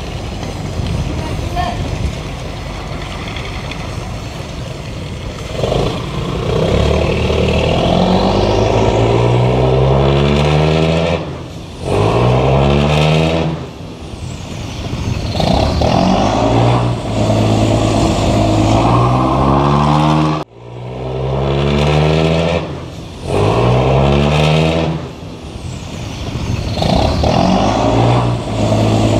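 A fishing boat's diesel engine is run at a low rumble for a few seconds, then revved hard over and over with a roar. Each surge climbs in pitch and drops away, and about twenty seconds in the sound cuts off sharply for a moment.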